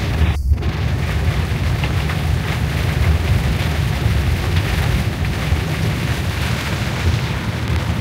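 Inside a moving car in the rain: steady low road and engine rumble with a hiss of wind and rain on the windows. The sound cuts out briefly about half a second in.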